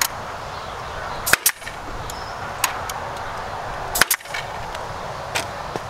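Staple gun firing staples through wire mesh into a wooden frame: two loud, sharp double snaps, about a second and a half in and about four seconds in, with lighter clicks in between.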